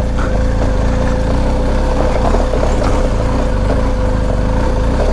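BMW GS Adventure motorcycle's engine running steadily while the bike is ridden over rough rock and dirt, a low rumble with a constant steady tone over it.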